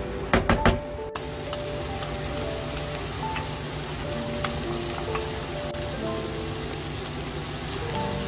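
Kimchi, tuna and onion sizzling as they are stir-fried in a nonstick pan, with a few sharp knocks of the spatula against the pan in the first second.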